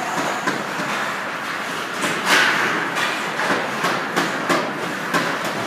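Ice hockey play at close range: skate blades scraping and carving on the ice, with sharp clacks of sticks and puck scattered through it. A louder scrape about two seconds in.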